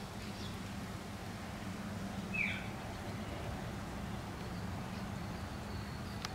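A bird gives one short call that falls in pitch about two and a half seconds in, with a few fainter chirps near the start, over a quiet outdoor background with a faint low hum.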